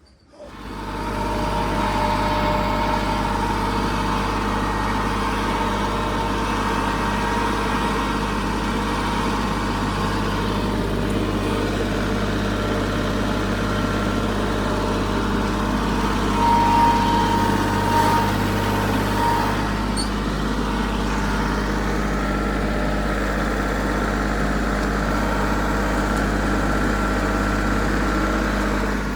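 A large engine running steadily at an even, low pitch, with a brief rise in level about two-thirds of the way through.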